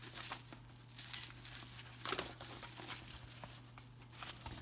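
Cordura nylon webbing of a MOLLE bandolier rustling and brushing as hands handle and unfold it, in scattered short scrapes, the largest about two seconds in, over a faint steady low hum.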